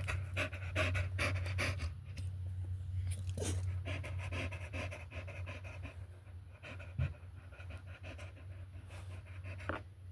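Dog panting rapidly with quick, regular breaths, over a steady low hum.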